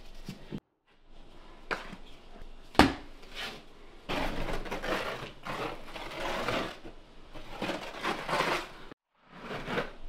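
Steel trowel scraping and spreading thinset mortar on the floor in repeated strokes, with one sharp knock about three seconds in.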